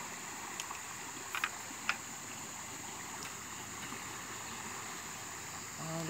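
Steady rushing of a fast-flowing, flood-swollen river, with a few faint clicks in the first two seconds.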